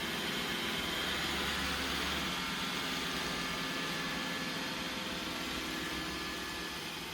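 iRobot Roomba 960 robot vacuum running steadily, a whirring hiss with thin steady whines, after being sent back to its dock. It grows slightly quieter near the end.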